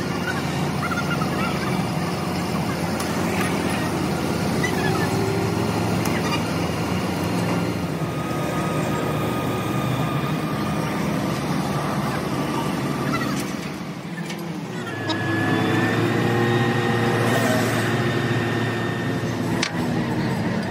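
A vehicle engine running steadily. It drops briefly about fourteen seconds in, then picks up again.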